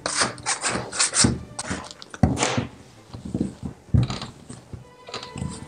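Soft strudel dough being kneaded by hand on a bare wooden table: irregular rubs, slaps and thumps as it is pushed, folded and dropped back down, with a few louder thumps.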